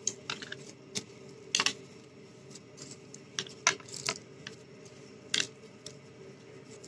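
Hands kneading mashed boiled potato with spices in a plastic bowl: irregular short taps and clicks of hands and food against the plastic, about half a dozen, scattered through a faint steady hum.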